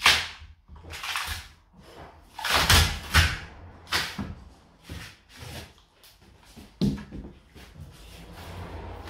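Knocks and cracks of a painted false timber beam being pried off a plaster wall with a hand tool. Several irregular sharp hits, the loudest at the start and a cluster about three seconds in.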